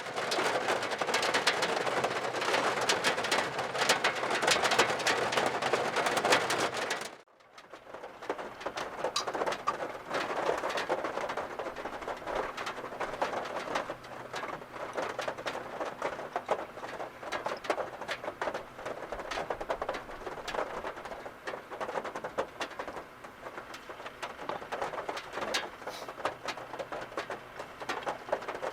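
Heavy typhoon rain drumming on a kei car's roof and body, heard from inside the cabin: a dense patter of drops. The patter breaks off for a moment about seven seconds in and carries on a little lighter, with single drops ticking.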